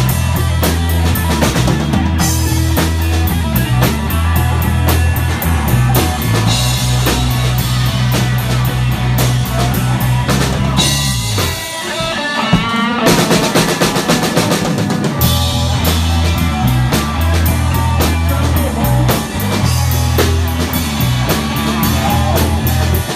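Live rock band playing: drum kit, bass and electric guitar. About twelve seconds in, the bass drops out for a moment before the full band comes back in.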